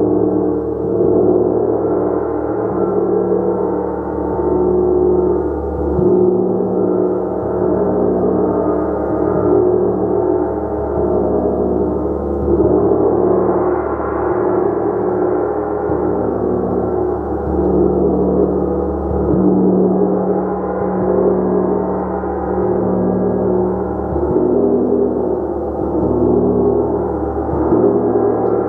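Gong played continuously: a dense wash of overlapping, sustained low tones that swells and eases in waves every second or two.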